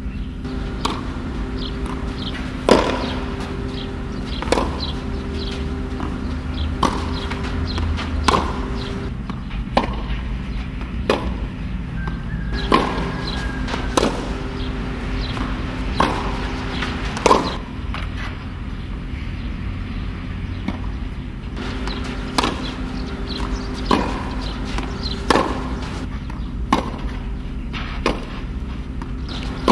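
Tennis balls being struck with a racket on a clay court: sharp pops every one to two seconds, over a steady low hum.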